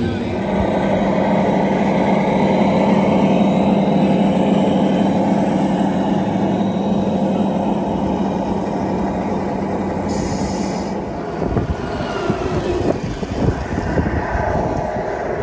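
Simulated diesel truck engine sound from the sound units of 1/14-scale RC trucks, a steady running hum that turns more uneven about eleven seconds in.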